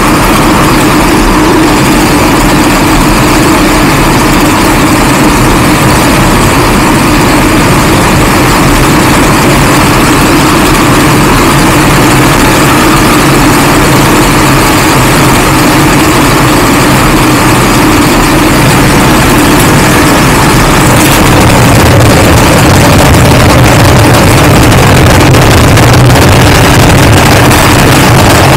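CFMOTO 450SR S parallel-twin sport bike under way at around 100 to 120 km/h, its engine and the rush of air heard from the rider's seat. It grows a little louder and deeper in the last several seconds as the bike speeds up.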